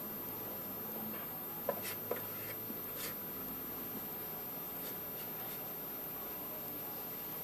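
A few light clicks and soft rubbing as a hand handles the rusty hot plate's metal casing, over a steady low hiss and faint hum.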